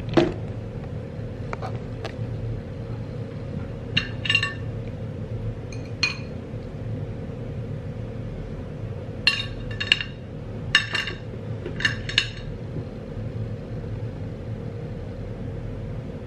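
Metal cutlery clinking against a ceramic bowl and plate while food is served and eaten: a few scattered ringing clinks over the first six seconds, then a quick run of about eight clinks between nine and twelve seconds in. A steady low hum runs underneath.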